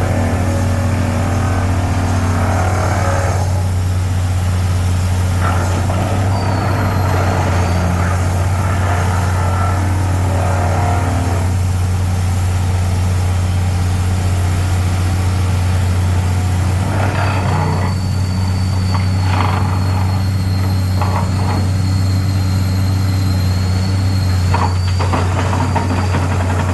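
Heavy vibratory hammer machine running steadily with a deep, loud hum, with scattered knocks and clatter over it, more of them in the last third.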